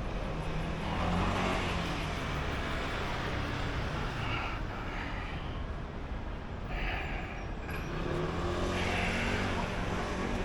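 Outdoor city street noise with motor vehicles running and passing, swelling about a second in and again near the end.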